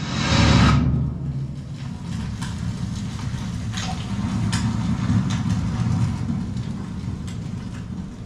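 A whooshing swell that peaks about half a second in and dies away, then a steady low rumbling drone with a few faint ticks over it.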